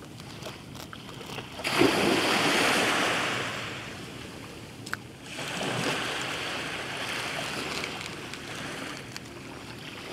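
Small waves washing up onto the shore, two swells of surf that each rise quickly and slowly die away. A single light click about five seconds in.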